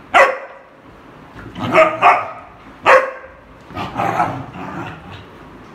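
Dog barking in play: single sharp barks, one right at the start, a quick pair around two seconds and another near three seconds, then a longer, rougher run of barking as two dogs start a friendly play-fight.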